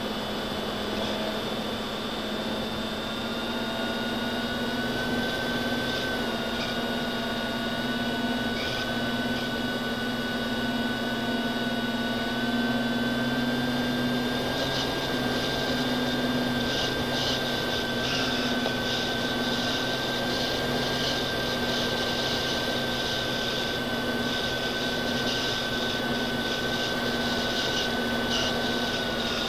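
Electric motors and propellers of an FPV aircraft whining steadily, picked up by its onboard camera along with wind noise. The pitch steps slightly up or down now and then as the throttle changes.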